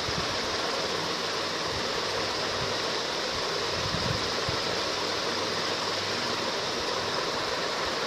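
Steady, even hiss of background noise, with a faint low knock or two about four seconds in.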